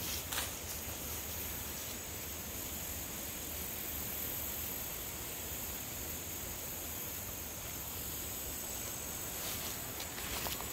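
Steady high-pitched chorus of singing insects in a late-summer meadow, with a few footsteps on grass near the start and again near the end.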